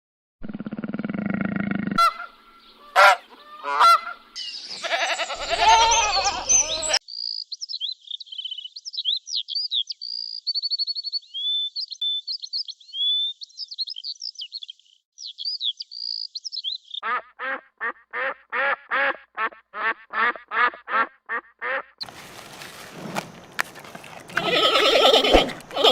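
A run of different animal and bird calls one after another: high, quick chirping for several seconds in the middle, then a fast series of repeated honking calls, about three a second, like geese or ducks.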